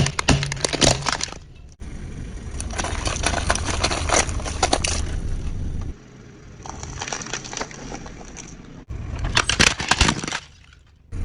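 Objects being crushed under a vehicle: repeated crunching and cracking over a low engine rumble, in several short clips that change abruptly.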